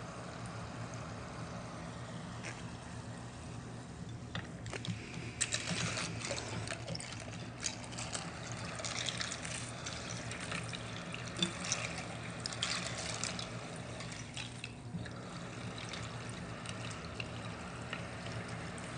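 Water trickling and splashing in a glass bowl of water beads, over a low steady hum. The water sounds come in irregular spurts from about four seconds in until about fifteen seconds.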